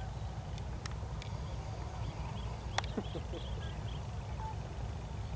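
Forest ambience over a steady low rumble, with faint high bird chirps. About three seconds in there is a sharp click and a short animal call that falls in pitch.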